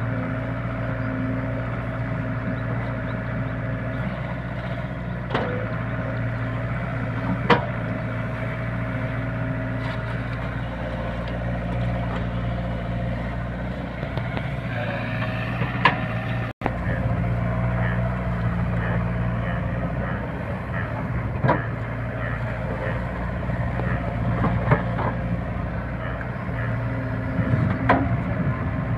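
SDLG hydraulic excavator's diesel engine running steadily as the machine digs in wet mud. A few sharp knocks from the bucket and arm are spread through it.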